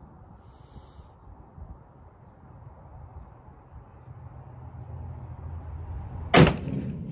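A single shot from a Gonic GA-90 .45-calibre black-powder muzzleloader, about six seconds in: one sharp, loud report with a short fading tail.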